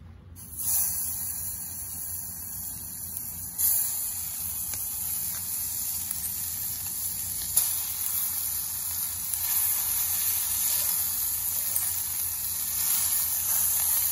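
Seasoned gar fillets sizzling in hot oil in a small camping pan over a campfire. The hiss starts suddenly about half a second in and jumps louder twice, about three and a half and seven and a half seconds in, as more fillets go into the pan.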